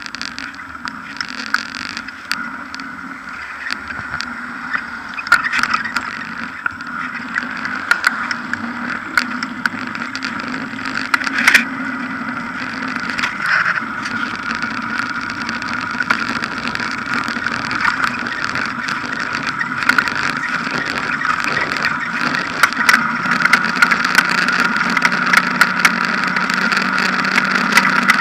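Bicycle rolling over paving slabs and then asphalt, heard from a camera mounted by the front wheel: a steady hum of tyre and road noise with many small clicks and rattles from bumps, slowly growing louder.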